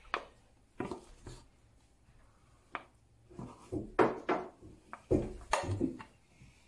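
A spoon scraping and knocking against a frying pan and a small ceramic bowl as cooked rice is scooped and pressed into the bowl: a string of separate clicks and clatters, busiest about four seconds in and again a second later.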